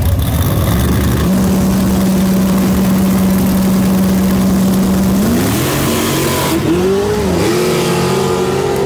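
Nitrous-equipped Chevy S10 drag truck's engine brought up from idle and held at a steady raised rpm on the starting line, then revving higher with the pitch rising and wavering as the truck launches down the track.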